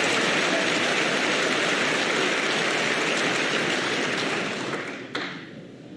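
Arena audience applauding, dying away about five seconds in, with a single sharp click just after it fades.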